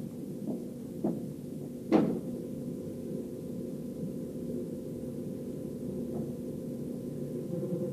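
A few short knocks, the loudest about two seconds in and a faint one later, over a steady low hum.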